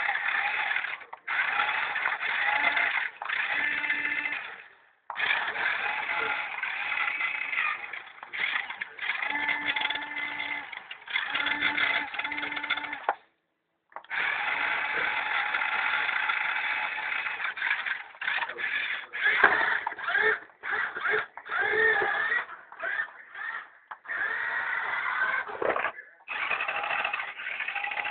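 Small electric motor of a toy RC car whirring in repeated runs, some several seconds long and some short, starting and stopping with brief pauses between.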